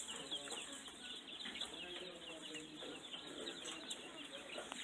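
Many baby chicks peeping at once: a dense, continuous chorus of short, high, falling cheeps.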